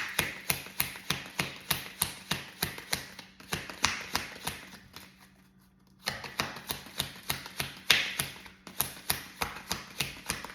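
Tarot deck being shuffled by hand: a quick, even run of card slaps at about four or five a second, with a brief pause a little past the middle.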